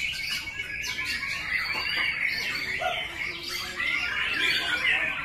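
White-rumped shama (murai batu) singing a rapid, unbroken run of varied chirps and trills.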